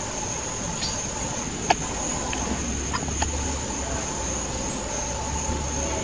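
Steady high-pitched insect drone with a low rumble underneath, and a few short bird chirps scattered through the first half.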